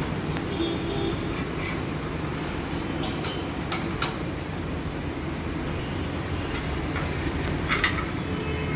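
Steady low roar of open gas burner flames, with a few sharp metallic clicks and clatters of a spatula and a wire roasting grill, the loudest about four seconds in and another pair near the end.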